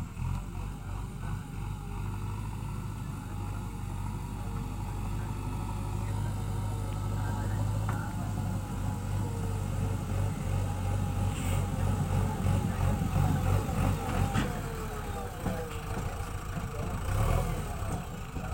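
JCB 3DX backhoe loader's diesel engine running under working load, a steady low drone with wavering higher tones above it and a couple of sharp knocks in the second half.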